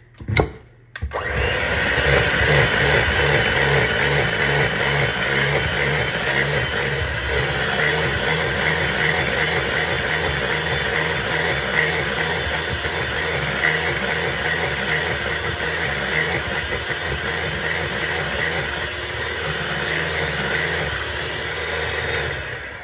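Electric hand mixer running steadily, its beaters whisking cake batter in a glass bowl. The motor starts about a second in and winds down near the end.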